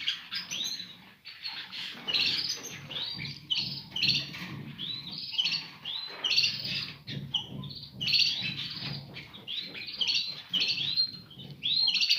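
Caged canaries and goldfinches chirping, a busy run of short, quick notes several times a second with no pause.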